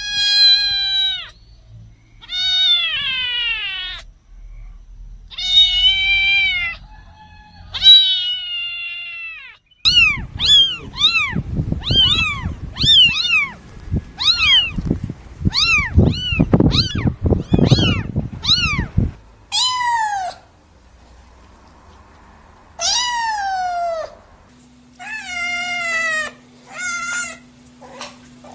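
Kittens meowing repeatedly. Several long, drawn-out meows come first. Then a quick run of short, arched meows, about two a second, sounds over a low rumbling noise, followed by more long meows.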